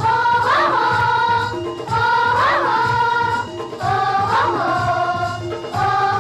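Hindi children's rhyme sung over a music track: sung phrases of about two seconds, each rising and falling in pitch, over a steady repeating bass beat.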